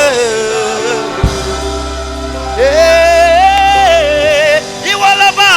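Live gospel worship music: a voice singing long, wavering held notes over sustained chords, with a deep bass note held through the middle.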